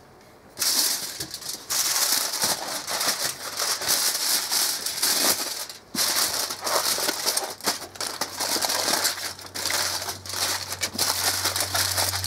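Aluminum foil crinkling and crumpling as a foil pack is folded and crimped shut by hand, in a dense irregular crackle. A low steady hum comes in over the last few seconds.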